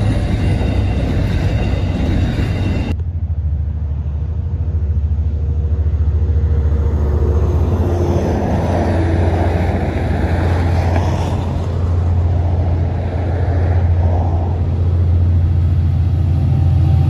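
Aurizon diesel coal train: for about three seconds its wagons roll past, then the sound cuts to a steadier low rumble of distant diesel locomotives. The rumble grows slightly louder near the end as the next train approaches.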